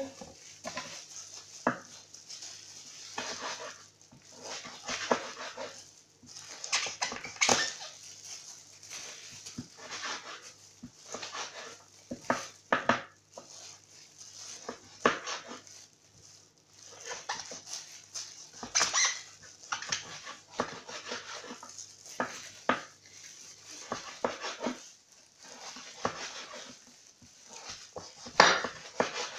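Kitchen knife cutting peeled raw pumpkin into thin strips on a cutting board: irregular crisp cuts and taps of the blade on the board, about one a second.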